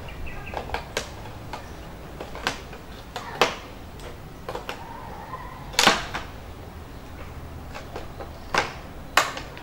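Scissors snipping through the thin plastic wall of a mineral-water bottle: a series of sharp, irregular snips, the loudest about six seconds in.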